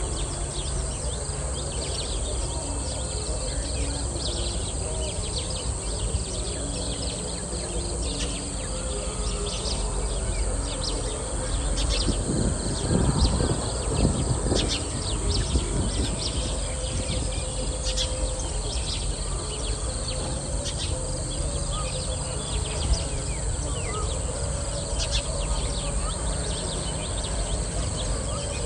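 Outdoor ambience of a rural building site: a steady high insect drone with scattered bird chirps and faint distant voices. A louder burst of low noise comes about twelve seconds in and lasts a few seconds.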